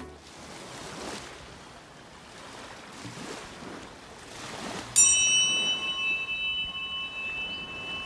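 Ocean surf washing in slow swells. About five seconds in, a healing tuning fork is struck and rings on with several clear high tones.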